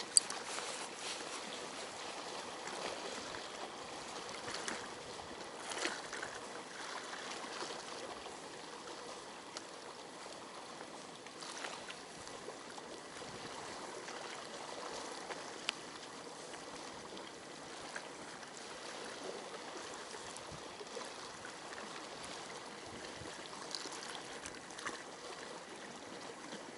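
Steady, low ambient noise of moving water, with a few faint clicks.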